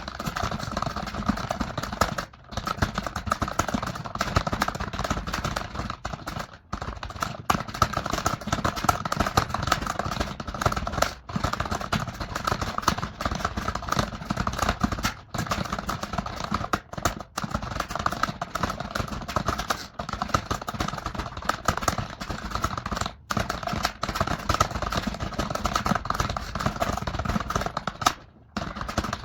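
Very fast typing on a computer keyboard: a dense, continuous clatter of keystrokes, broken by a few brief pauses.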